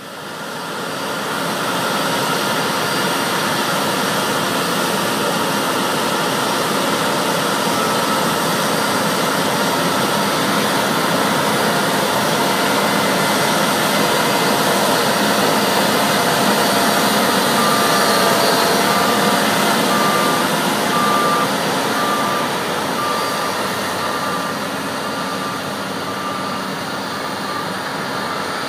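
New Holland combine harvester running under load while cutting wheat: a steady drone of diesel engine and threshing machinery. In the second half an electronic beeper sounds repeatedly, about one short beep every three-quarters of a second, for roughly ten seconds.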